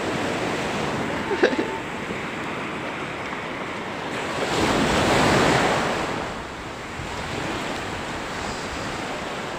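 Rough sea surf washing onto a beach, with one wave surging in about halfway through and then ebbing away.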